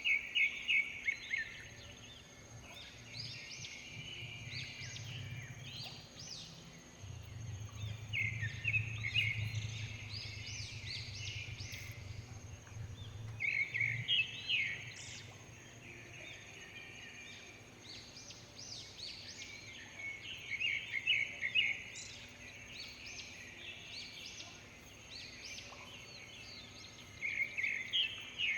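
Birds singing in repeated bursts of quick chattering notes every few seconds, over a faint steady high tone. A low hum rises in the middle of the stretch.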